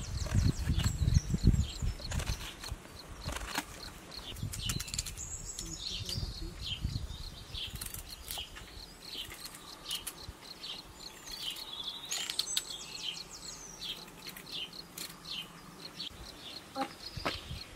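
Small birds chirping and trilling again and again, high-pitched, over the sharp clicks and scrapes of a knife paring eggplant and potatoes. Low thuds of handling in the first couple of seconds are the loudest part.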